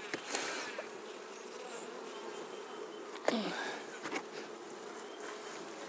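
A colony of honeybees buzzing in a steady hum around an opened top bar hive. A few short knocks and scrapes are heard as the top bars are worked, the loudest about three seconds in.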